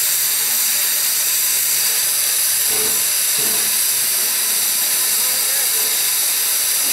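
Steady hiss of steam escaping from a standing 4-4-0 steam locomotive, the replica of Central Pacific No. 63 'Leviathan'.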